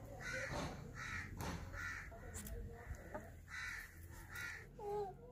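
A crow cawing, about five short caws with uneven gaps between them, over light clicks of eggshell being peeled off boiled eggs by hand.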